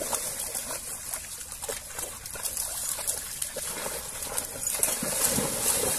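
Water splashing and sloshing as several dogs wade and swim through shallow lake water, with irregular small splashes throughout.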